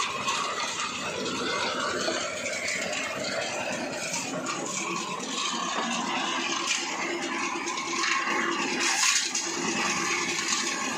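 Engine-driven tilting-drum concrete mixer running, its drum turning and churning the mix with a steady, continuous noise.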